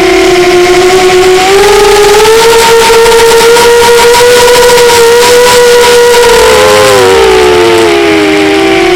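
Radio-controlled model airplane engine running loud and steady, its pitch climbing about a second and a half in, holding, then sagging near the end, where two slightly different engine tones drift apart.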